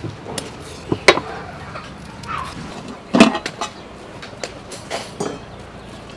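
Small kitchen knife cutting a green chili and then leafy vegetable stems, giving scattered short clicks and snaps. There is a louder, fuller short sound about three seconds in.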